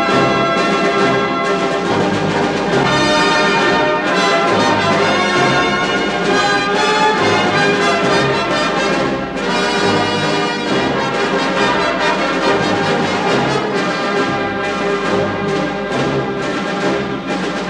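Background orchestral music led by brass, with held chords and a pulsing bass line.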